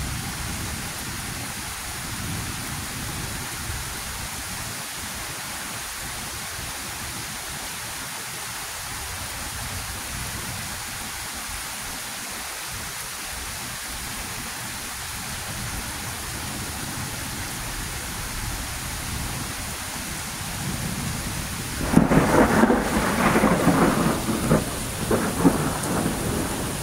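Heavy rain falling steadily during a thunderstorm, with a loud clap of thunder near the end that crackles and rumbles on for a few seconds.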